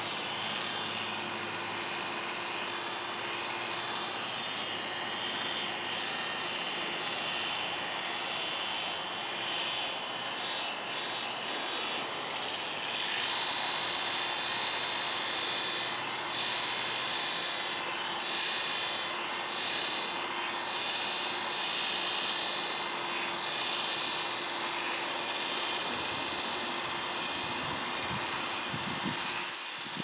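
Oster A5 electric clippers running steadily with a constant buzzing hum as they clip a dog's coat, a little louder through the middle stretch.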